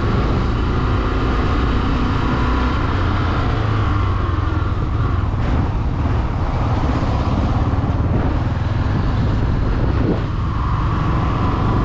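Single-cylinder engine of a Honda Twister 250F motorcycle running steadily at road speed, under wind and road noise. There is a brief dip in level near the end.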